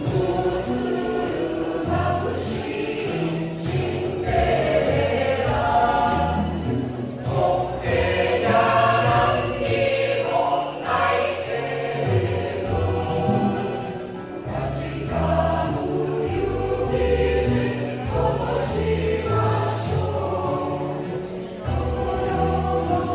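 A mixed choir of men's and women's voices singing together.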